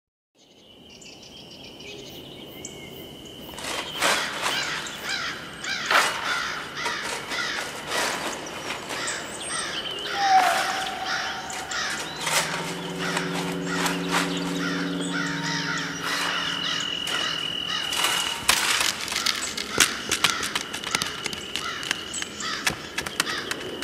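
Intro ambience of a Goa trance track: crows cawing and other birds calling outdoors, fading in from silence over the first few seconds. A low held tone sounds from about halfway through for a few seconds.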